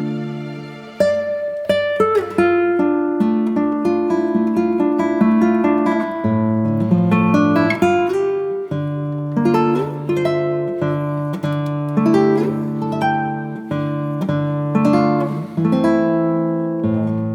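Background music: acoustic guitar picking a slow melody of plucked notes over sustained bass notes.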